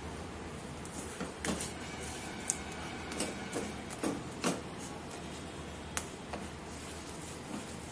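Silicone spatula stirring thick caramel in a nonstick pan: irregular scrapes and a few sharp clicks against the pan, over a steady low hum.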